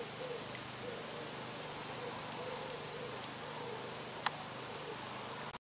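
Birds calling by a lake: a run of soft, low hoot-like calls about twice a second, with a few short, high, thin peeps in the middle and a single sharp click near the end.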